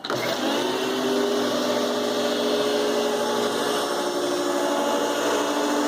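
Hoover Futura 4.0 peak horsepower canister vacuum (model S3557) switched on: the motor spins up over about half a second, its whine rising, then runs steadily with a steady whine over a strong rush of air.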